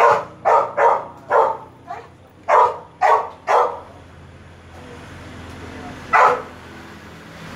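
A dog barking: a quick run of about eight sharp barks, then one more bark about six seconds in.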